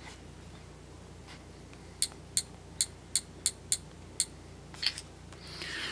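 Seven short, sharp clicks, about three a second, from key presses on the FileMate Clear T720 tablet's on-screen keyboard as the word 'Netflix' is typed, then a quick double click a little later and a brief soft hiss near the end.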